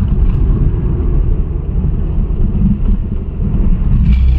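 Honda City driving, heard from inside the cabin: a steady low rumble of engine and road noise as the car pulls away. The car's CVT has just been repaired, and the driver says it now grips well.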